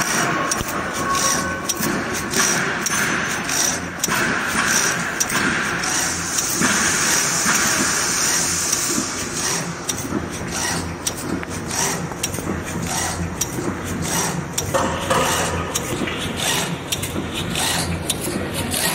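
Automatic hexagonal wire mesh netting machine running: a steady mechanical clatter full of rapid, irregular clicks and knocks from its wire-twisting mechanism.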